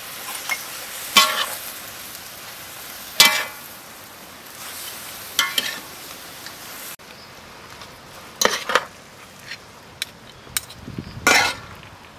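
Stir-frying in a metal wok: a steady sizzle, with a metal ladle clanking and scraping against the wok five times, every two to three seconds. The sizzle gets a little quieter about seven seconds in.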